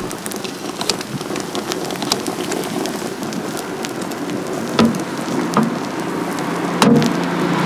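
Steady sizzling and crackling from a hot egg bread grill, full of tiny pops, with a couple of sharper knocks about five and seven seconds in.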